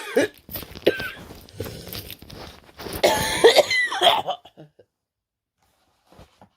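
A person coughing repeatedly, a run of coughs that stops about four and a half seconds in.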